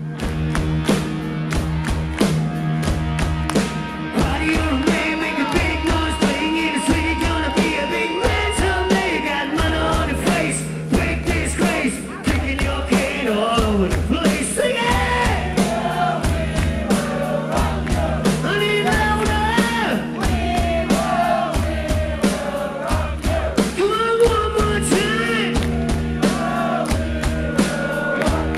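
Rock band playing live, with drums keeping a steady beat under electric guitar and bass, and a male lead singer coming in about four seconds in.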